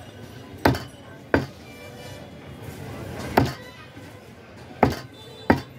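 A butcher's heavy knife chops mutton into small pieces on a wooden chopping block, five sharp chops at uneven intervals.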